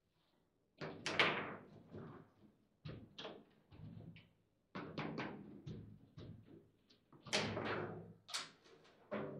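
Table football being played: an irregular run of sharp knocks and clacks as the ball is struck by the rod figures and the rods are slammed, the first loud hit coming about a second in, with a busier cluster of hard hits near the end.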